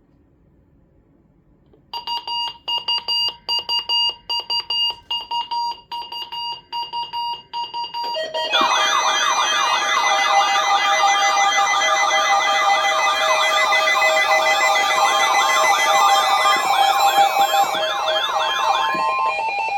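Electronic emergency-alert test alarm tones. About two seconds in, a rapid high beeping starts. From about eight seconds, several wailing siren tones sweep up and down together over steady tones, and they cut off near the end as a single steady tone takes over.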